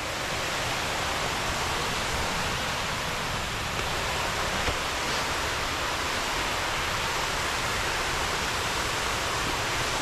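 Steady rushing of a waterfall: an even, unbroken noise of falling water.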